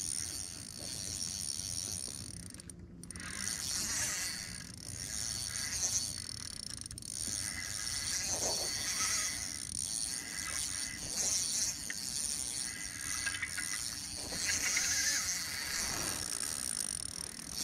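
Daiwa spinning reel whirring in uneven spells as a hooked bass is reeled in, a high buzzing that swells and fades.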